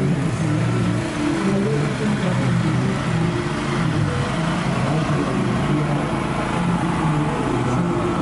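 Motor vehicle engines running steadily, a mix of idling and slowly moving cars and motorcycles, with a low wavering engine hum.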